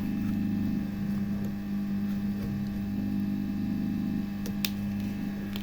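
Steady low electrical hum, with a single small click about four and a half seconds in.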